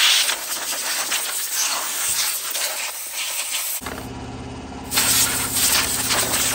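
Compressed air hissing from an air blow gun as a chainsaw is blown clean, in long bursts, with a break around the middle. About four seconds in, a motor starts up with a steady hum that keeps running.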